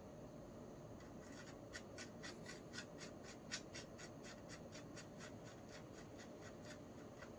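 Quiet, even clicking of a Sturmey-Archer S3B three-speed hub's internal gear mechanism as it is turned by hand, its pawls ticking over about six times a second. The clicking starts about a second in and keeps going.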